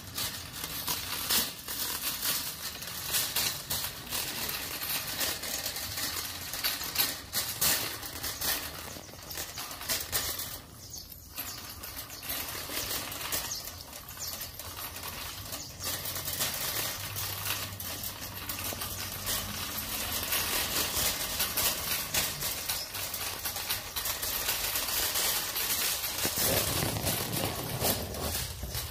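Wire shopping cart rattling and clicking steadily as it is pushed over a concrete floor.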